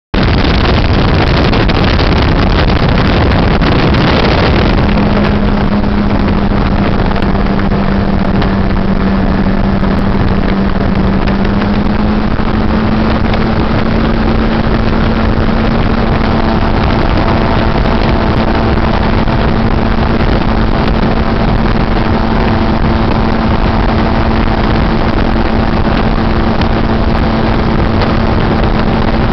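Gyrocopter in flight, heard from on board: its engine and propeller run steadily under a heavy rush of air. The rush is strongest for the first four seconds or so, then a steady hum comes through and rises slightly in pitch about twelve seconds in.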